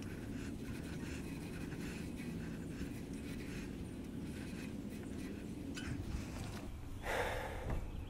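A cloth rubbing over a mountain bike's disc brake rotor in repeated wiping strokes to clean it, with panting breath close to the microphone and a brief louder rustle near the end.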